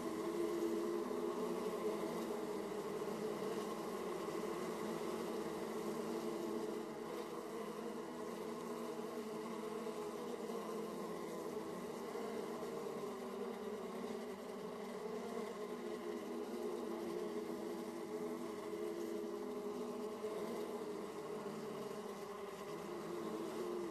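Honeybees buzzing at the hive entrance: a continuous hum of many bees flying in and out, with a steady low drone and shifting overtones.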